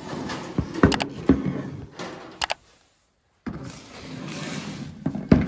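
Handling noise from a Porsche 996 front wheel carrier being picked up and moved about on a workbench: rustling with several sharp knocks of the metal part against the bench, broken by a short silence in the middle.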